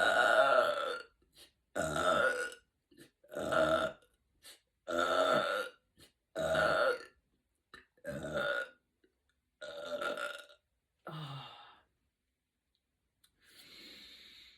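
A woman burping over and over: eight burps in a row, about one every second and a half, the first loudest and the last few weaker. A faint breathy sound follows near the end.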